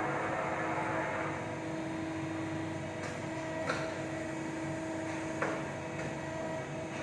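Steady machine hum with a few fixed tones over a mechanical hiss, and two short clicks, the first about three and a half seconds in and the second near five and a half seconds.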